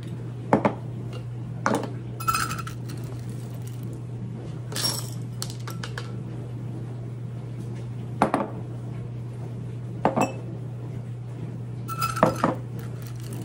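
Dry navy beans scooped with a metal measuring cup and poured through a plastic canning funnel into glass pint jars: short rattles of beans and several sharp clinks of metal and glass. A steady low hum lies underneath.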